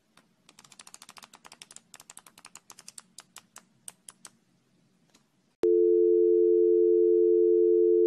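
Pages of a small paper flipbook flicking off a thumb in a quick run of light clicks. About a second and a half after they stop, a loud steady electronic tone of two low notes sounding together, like a telephone dial tone, starts suddenly and holds.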